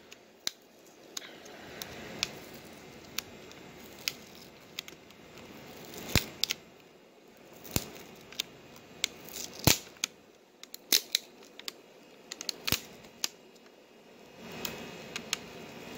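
Shiny protective film over an LCD panel's TCON board being peeled back off its adhesive by hand: faint crinkling with sharp crackles and snaps scattered throughout, loudest about six, ten and thirteen seconds in.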